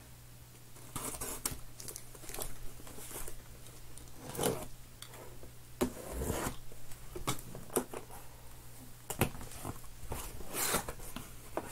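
A cardboard shipping case being opened by hand: packing tape ripping and cardboard flaps scraping and rubbing in a string of short bursts.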